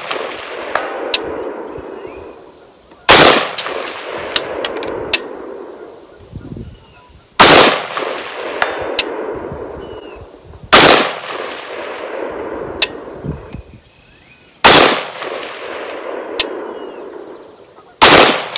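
ATI Alpha Maxx AR-15 rifle fired five times in slow, aimed fire, a shot every three to four seconds, each sharp report echoing away over a few seconds.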